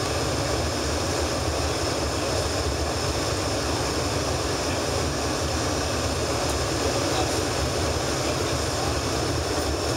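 Steady cabin noise inside an Embraer ERJ-145 regional jet on landing: the drone of its twin rear-mounted turbofans and airflow, even throughout with no distinct bumps.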